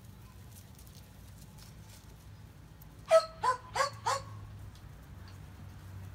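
Shetland sheepdog barking: four short barks in quick succession about three seconds in, the first the loudest.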